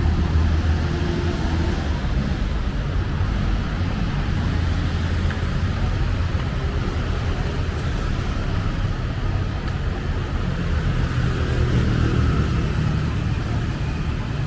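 Steady city road traffic: the low drone of vehicle engines and tyre noise, swelling near the start and again about three-quarters of the way through as vehicles pass close.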